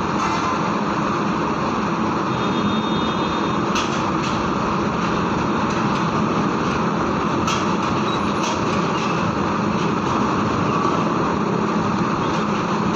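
Heavy tronton trucks' diesel engines running steadily as they drive off a ferry, with a few short sharp knocks along the way.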